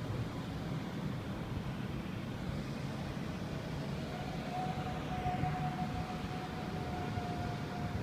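The unexplained 'strange sound': a steady low rumbling drone, with a thin held tone above it that steps up slightly in pitch about four seconds in.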